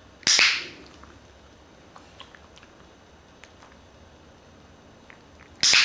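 Two sharp clicks from a dog-training clicker about five seconds apart, each with a short hissy tail. They mark the dog for holding its trained hide-its-face pose under its paws.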